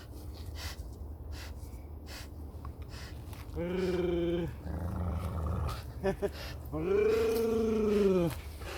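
Newfoundland dog growling during a rope tug-of-war: a low rumbling growl, broken by two long pitched groans, one near the middle and a longer one that rises and falls toward the end.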